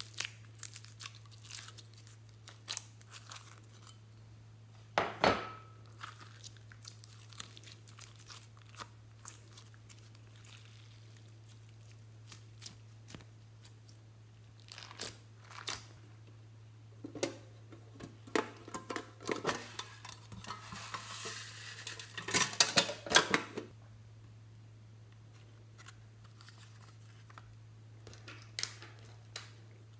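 Slime being peeled from a plastic mold and squished by hand: scattered sticky pops and crackles, with a louder burst about five seconds in and a longer stretch of dense crackling a little after two-thirds of the way through, over a steady low hum.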